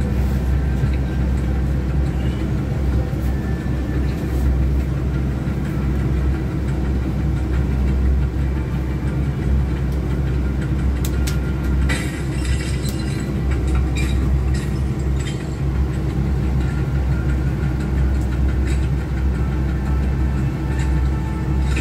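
Bus engine running with a steady low rumble, heard from inside the cabin. A few light clicks and rattles come about halfway through.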